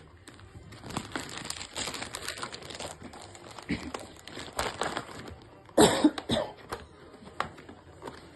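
Toy-box packaging, cardboard and plastic, rustling and crinkling as a remote-control car is worked out of it. A brief loud burst comes about six seconds in.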